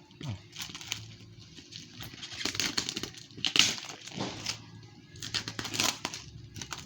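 Packaging being cut and torn open: plastic and tape crinkling and tearing in several irregular bursts.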